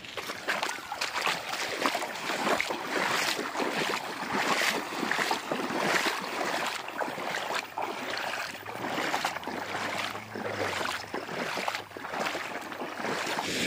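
Footsteps wading through shallow floodwater in rubber boots, each step splashing and sloshing at a steady walking pace.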